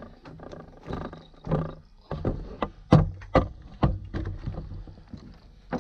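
Handling noise on a wooden dock while a fish is being landed: thuds, bumps and footsteps on the planks and on the camera. The loudest are a quick run of sharp knocks about two to four seconds in.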